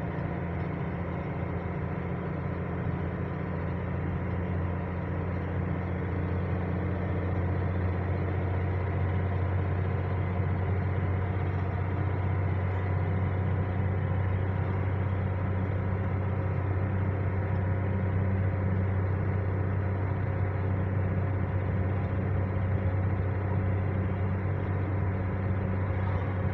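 Engine and road noise of a moving vehicle, heard from inside the cab while cruising along a road: a steady low drone that grows slightly louder a few seconds in.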